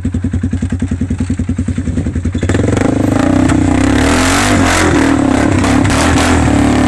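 Polaris Sportsman 570 ATV's single-cylinder engine running at low revs with an even beat, then about two and a half seconds in it revs up and gets louder under load as the quad climbs a dirt bank, with some clatter.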